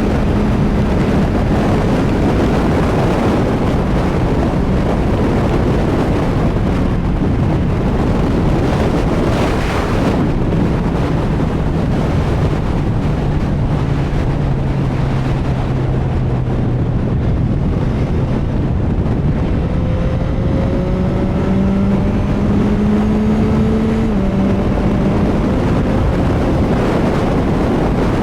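CFMoto 675SR-R's inline-three engine running at highway speed, heavily buried in wind rushing over the microphone. The engine note drops about ten seconds in and slowly sinks. Later it climbs again, then steps down as if through an upshift near the end.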